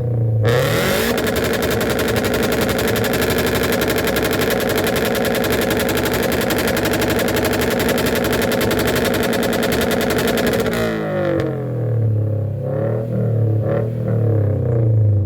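Motorcycle engine idling, then revved up about a second in and held at high revs for about ten seconds before dropping back to idle, with a few short throttle blips near the end.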